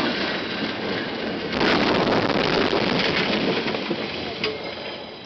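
Loud rushing and crackling noise on a car dashcam's microphone during a highway crash, as the camera car is struck and knocked about. The noise surges again about a second and a half in, with a sharp click near the end, then dies away.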